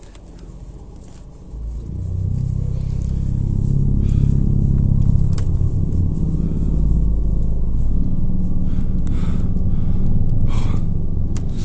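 Loud, low rumbling drone with a wavering hum in it, swelling in about two seconds in and then holding steady. Its source is unknown to the listeners, who hear it as coming from the sky.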